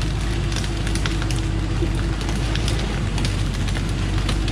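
Thaco Foland diesel truck engine running steadily as the truck reverses, with irregular crackling and snapping of cut acacia branches crushed under its tyres.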